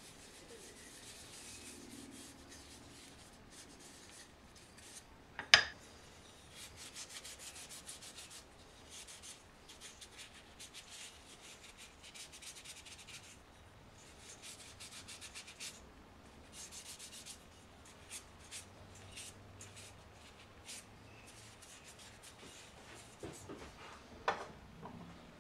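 Danish oil being rubbed into spalted taraire wooden coasters, in clusters of quick scratchy strokes. A single sharp knock about five seconds in is the loudest sound, and a few lighter knocks come near the end.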